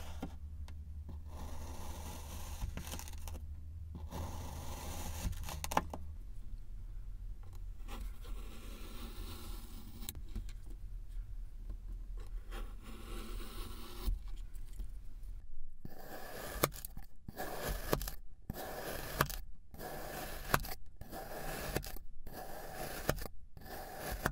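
Kinetic sand being cut and shaved with a knife and a vegetable peeler: a gritty, crumbly scraping. Late on it becomes a quick run of separate slicing strokes with short silent gaps between them.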